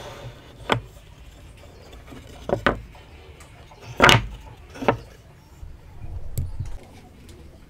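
Hand-cut wooden joint pieces knocked and set down on a wooden workbench: about six short, sharp wooden knocks, the loudest about four seconds in.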